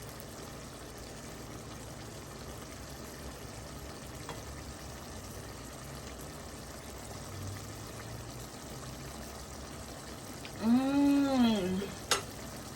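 Steady hiss of beetroot leaves steaming in a pot on the stove. Near the end comes one long rising-and-falling "mmm" of someone tasting the food, then a single click.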